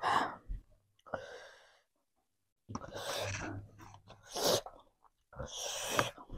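Close-miked eating sounds: a person chewing a mouthful of rice with hand-mixed side dishes, with wet mouth noises in about five short bursts separated by dead silence.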